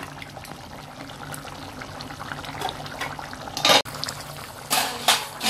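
Meat stew of mutton and chicken boiling hard in an open aluminium pressure cooker over a high flame, a steady bubbling. A short louder burst comes a little past halfway, with a couple more near the end.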